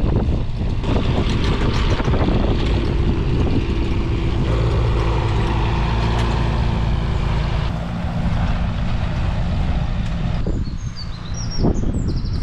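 Excavator's diesel engine running with a loud, low rumble. It holds an even tone for a few seconds in the middle and eases off after about eight seconds. A bird chirps briefly near the end.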